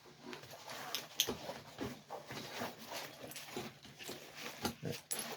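A padded climbing harness being handled: its webbing rustles, with light clicks from its metal buckles and steel rings, the sharpest about a second in and near the end.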